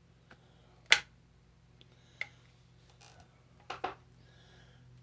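Metal clicks and light knocks of a shotgun trigger group being worked up into the receiver of a Hatfield SAS .410 semi-automatic, a tight fit. There are a handful of separate clicks, the loudest about a second in, and a quick double click near the end.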